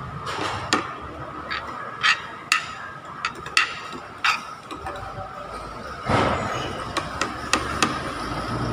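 Metal spoon and fork clinking and scraping against plates and a small bowl during a meal: about a dozen sharp, irregular taps over a steady hum.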